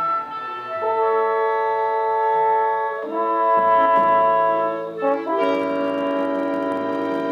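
Live orchestra playing a slow passage of long held chords, the chord changing every two seconds or so.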